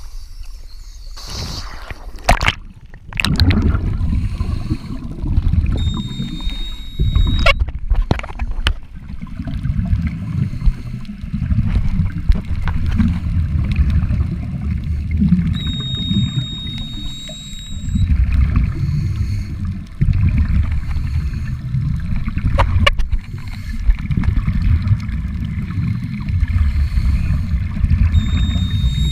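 Sea water sloshing and splashing for the first few seconds. Then, about three seconds in, the sound goes underwater: scuba regulator exhaust bubbles make a loud, irregular low rumbling and gurgling as the divers breathe on their descent.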